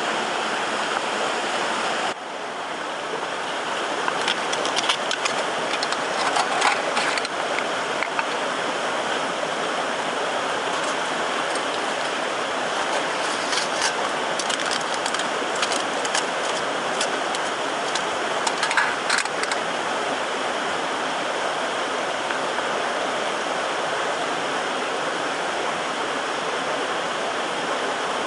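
Steady rushing of a mountain stream, with scattered sharp crackles and clicks in two clusters. The rushing dips briefly about two seconds in.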